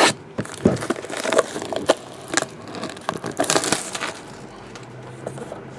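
Plastic shrink wrap being torn and peeled off a cardboard box, crinkling and crackling irregularly with a few sharp snaps, loudest in the first two seconds and again around three and a half seconds in.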